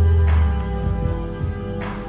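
Experimental electronic music played live on synthesizers and a drum-pad controller. Held synth chords sit over a deep bass note that drops out about half a second in and gives way to short pulsing bass notes. Two soft noisy hits come about a second and a half apart.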